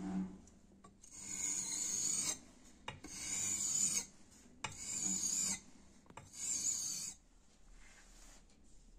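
Stainless steel knife blade stroked across the 5000-grit side of a combination whetstone: four long scraping strokes, each about a second long, with a high hiss, stopping about seven seconds in.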